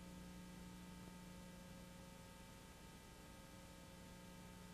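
Near silence: a faint, steady electrical hum with hiss and no sound from the scene itself.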